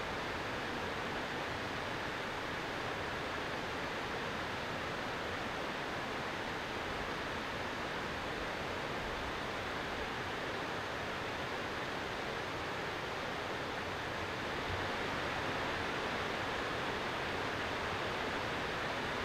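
Steady, even rushing noise with no distinct knocks or voices, growing slightly louder near the end.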